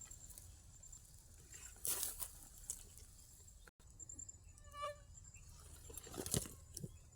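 Faint outdoor ambience with a few brief rustles and knocks, and one short pitched call a little past the middle.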